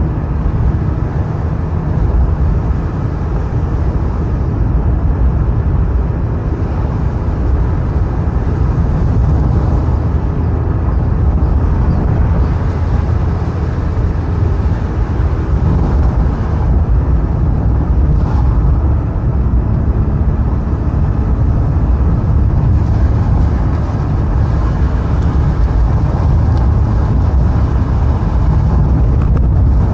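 A car driving along a road at a steady pace: continuous engine and tyre noise with a heavy low rumble.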